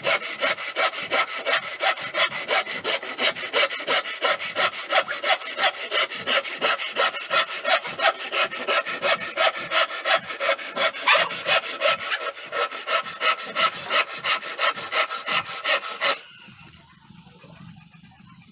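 Handsaw cutting through a wooden plank with quick, even back-and-forth strokes, about three a second. The sawing stops a couple of seconds before the end.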